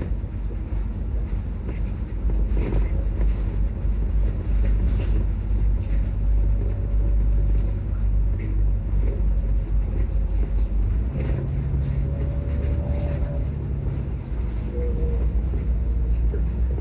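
Volvo double-decker bus running along the road, heard from the upper deck: a steady low engine and road rumble, with a faint thin whine through the middle and a deeper hum joining about eleven seconds in.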